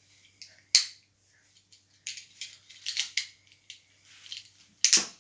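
Handling noise from the phone camera: scattered rustles and clicks. There is a sharp click about a second in and a louder knock near the end. A faint low hum stops at the knock.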